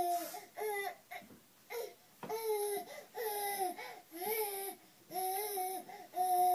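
A baby crying in a string of drawn-out wails, about one a second, with short pauses for breath between them.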